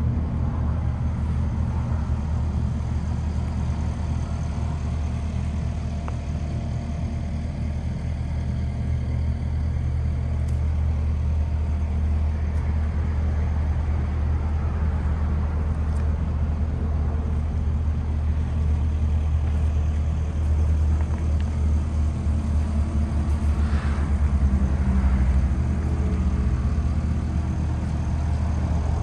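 Low, steady rumble of an idling engine, growing a little louder and more uneven about twenty seconds in.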